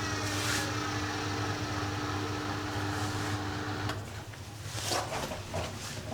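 Samsung Ecobubble WF1804WPU washing machine running with a steady motor hum and whine. The hum cuts off about four seconds in, and a few short knocks follow near the end: the knocking that the owner suspects comes from broken shock absorbers or worn bearings.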